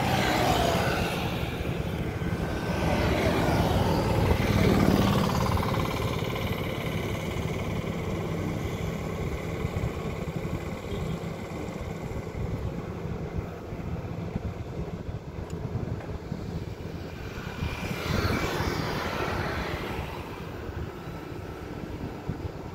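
Road traffic passing close by: vehicles swell and fade near the start, around four seconds in and about eighteen seconds in. Under them runs a steady low engine rumble from the excavator and tipper lorry working at the roadside.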